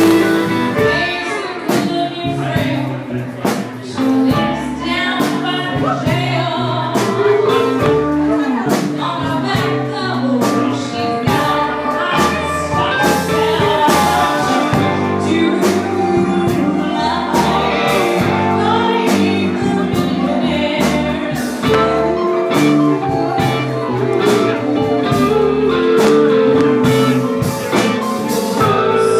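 Live blues band playing, with a woman singing lead over electric guitar and keyboard.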